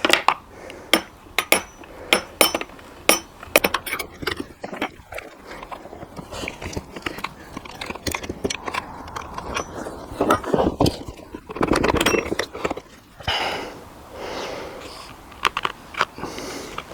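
Plastic chainsaw casing and parts being handled: a quick run of sharp clicks and knocks for the first few seconds, then rubbing and scraping with a few louder knocks.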